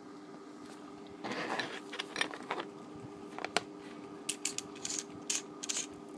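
Handling of a green laser sight's tubular body: a rustle about a second in, then scattered sharp clicks and scrapes as its end cap is worked open to take a CR123A battery.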